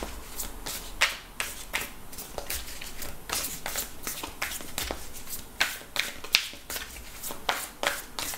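A tarot deck shuffled by hand, the cards flicking and slapping against each other in an irregular run of sharp clicks, a few each second.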